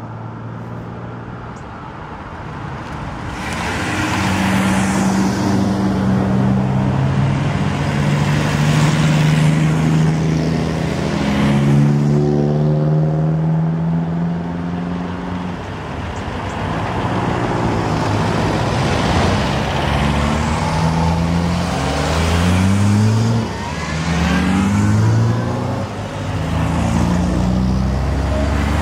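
A procession of cars, classic cars among them, driving past one after another, their engines pulling away. Near the end, engines rev up several times in a row, each with a rising pitch, as they accelerate through the gears.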